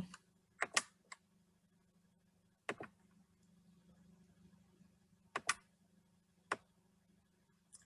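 Sparse sharp clicks at a computer, mostly in close pairs, with long gaps between them, over a faint steady hum.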